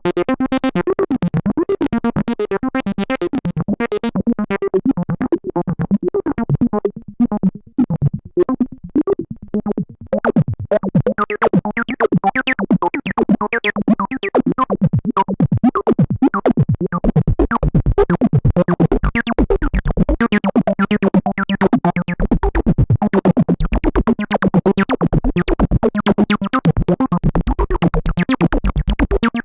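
Behringer System 100 analog modular synthesizer playing a fast sequenced bass line of rapidly repeating notes. The line thins to sparse notes about a third of the way in, then picks up again. In the second half it becomes a squelchy acid bass with a deep low pulse under it.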